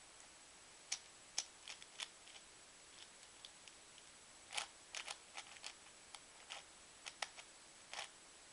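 Plastic 3x3x7 puzzle cuboid being scrambled by hand: scattered sharp clicks as its layers are turned, coming in small clusters with short pauses between.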